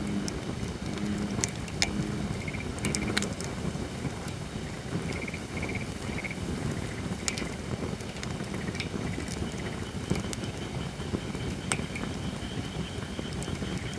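Holly firewood burning in a campfire, crackling with irregular sharp pops over a steady rushing background. Faint short repeated calls sound behind it, mostly in the first half.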